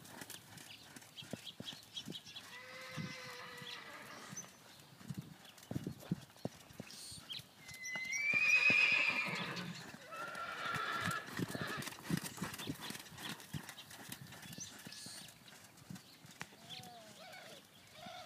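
Hoofbeats of a ridden horse on the sand footing of an arena, with a horse whinnying loudly, a wavering call, about eight seconds in.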